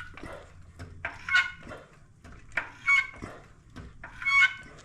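Three squeaks about a second and a half apart, typical of a jack being pumped to lift the suspension up to ride height.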